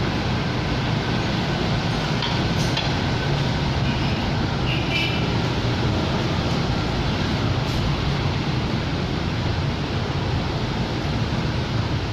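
Honda Accord 3.5-litre V6 engine running with a steady low rumble. The engine is misfiring on cylinders 1 to 3 (codes P0301–P0303), a fault the owner traced to the rear camshaft's timing being out from the timing belt.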